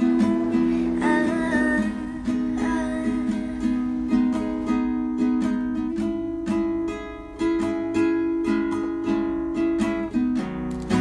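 Background music: a melody picked on a plucked acoustic string instrument, with frequent short notes.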